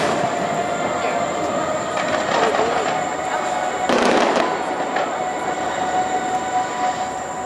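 Distant fireworks going off, with two sharp crackling bursts, one at the start and one about four seconds in, over a steady background hum.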